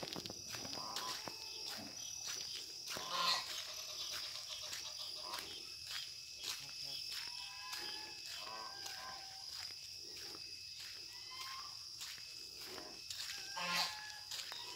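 Farmyard ambience: a steady high-pitched insect drone, with short chirping animal calls and footsteps on a dirt path. Two louder animal calls stand out, about three seconds in and near the end.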